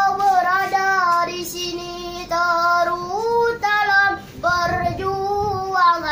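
A young boy singing an Indonesian march solo and unaccompanied, in sustained high notes that glide between pitches, with short pauses for breath.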